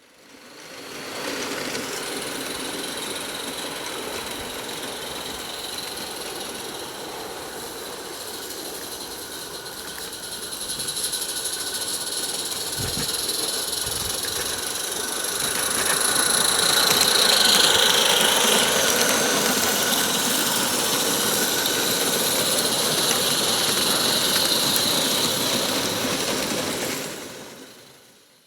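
A small 16mm-scale live steam garden railway locomotive running, with a steady steam hiss, growing louder about halfway through.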